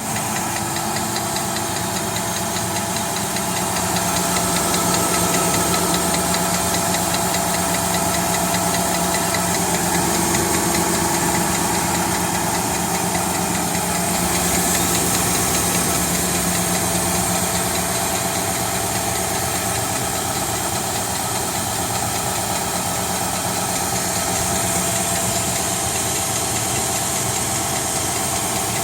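2017 Nissan Titan SV engine running steadily at idle with a fast, regular clicking over it: the clicking noise that the owner is showing.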